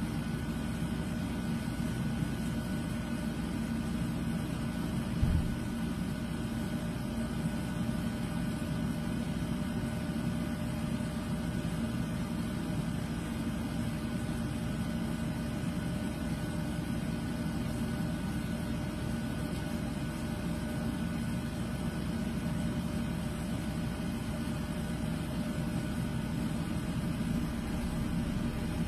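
Steady machine-like hum with several constant tones, with one brief knock about five seconds in.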